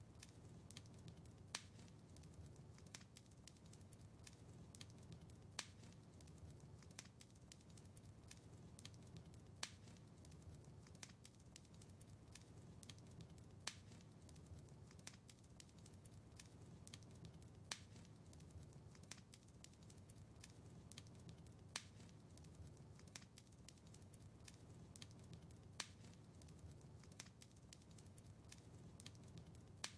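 Faint crackling of a wood fire in a fireplace: a steady scatter of small ticks and pops over a low rumble, with a sharper pop about every four seconds.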